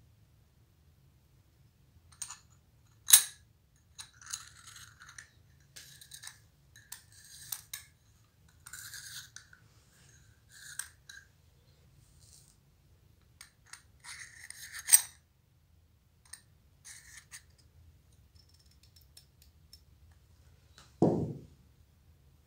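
A metal hand tool scraping and prying around the metal front ring and glass window of a CCTV camera housing, in short irregular strokes with two sharp metallic clinks, one about three seconds in and one about halfway. A dull thump near the end.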